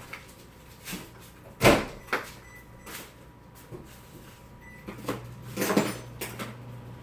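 Short knocks and clunks of parts and tools being handled while assembling a bicycle, about half a dozen, the loudest about a second and a half in and a quick cluster near the end.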